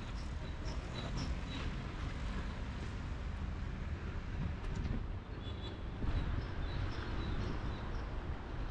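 Urban park ambience: a steady low rumble of city traffic, with small birds chirping in short high notes in two spells, near the start and again past the middle.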